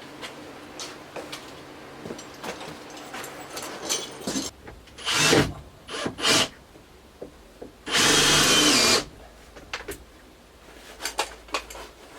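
A power tool running in short bursts, the longest about a second, among handling clicks and knocks. A steady low hum runs under the first few seconds and then stops.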